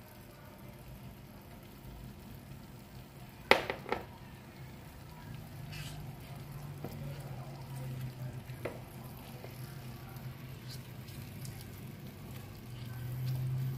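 Pan of sticky black glutinous rice in sweet syrup bubbling faintly as it is stirred with a wooden spoon. There are two sharp knocks about three and a half seconds in, a few lighter clicks after that, and a low hum that comes in about five seconds in.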